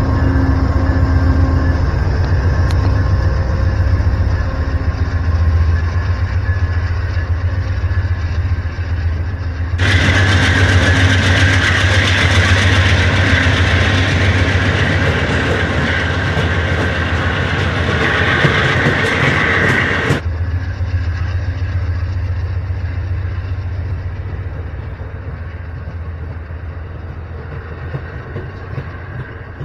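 Amtrak passenger train passing close by: a Genesis diesel locomotive's engine hums low and steady, then bi-level Superliner cars roll past with wheel and rail noise. The sound fades toward the end as the train moves away.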